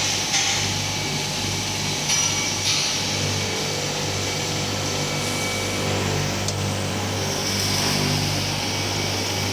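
Glass beveling and edge grinding machine running: a steady low motor hum under an even grinding hiss.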